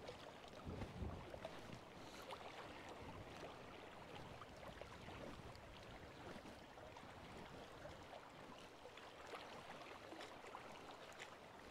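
Very faint wind and small waves lapping at the loch shore, an even hush with a few light ticks.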